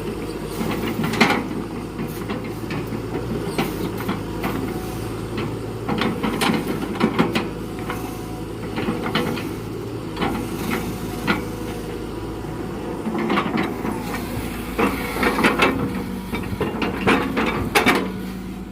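Excavator's diesel engine running steadily, with repeated knocks and clunks of rubberwood logs being handled.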